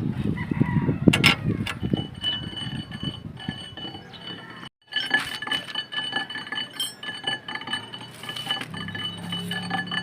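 Front disc brake of a Suzuki DA52 multicab making a metallic noise: clattering and clinking with a steady high-pitched squeal, broken off briefly about halfway. The mechanic takes it for metal-to-metal contact from worn brake pads.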